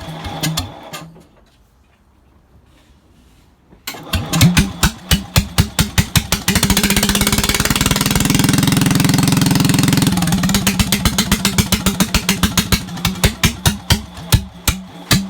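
Small gasoline engine running in even, lumpy firing pulses. It dies away about a second in and is quiet for a few seconds. Near the four-second mark it fires again, revs up to a steady higher speed for several seconds, then drops back to a slow, uneven run.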